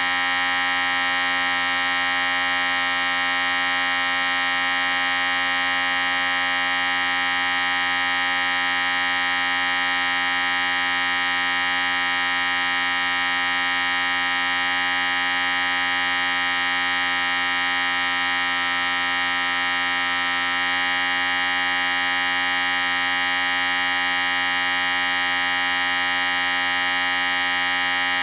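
Electric hair clippers running continuously at a steady, unchanging pitch.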